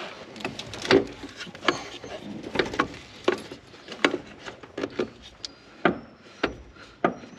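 A run of irregular knocks and taps, about fifteen, unevenly spaced: parts and tools being handled and test-fitted by hand while a throttle pedal bracket is mocked up.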